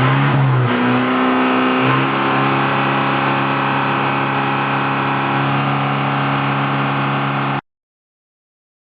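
Vehicle engine running, its speed dipping and rising briefly before holding steady for several seconds. The sound then cuts off abruptly.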